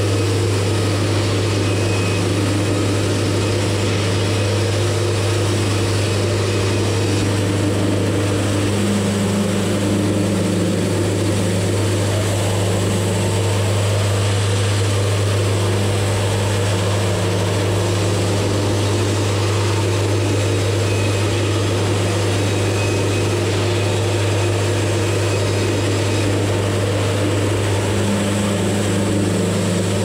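Wood-Mizer portable band sawmill running steadily, its engine droning as the band blade saws a board off a squared log.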